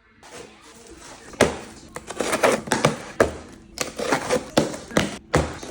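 Packaging crinkling and items knocking as they are handled and put away. An irregular run of sharp taps and clicks begins about a second and a half in.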